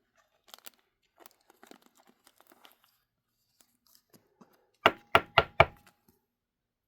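Trading cards being handled: faint rustling and light clicks, then four quick, sharp knocks about five seconds in, a card stack tapped square on the tabletop.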